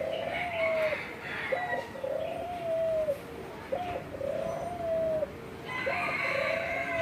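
A bird repeating a low two-part call about every two seconds: a short note, then a longer held note that drops at its end. Other birds chirp higher and more faintly near the start and near the end.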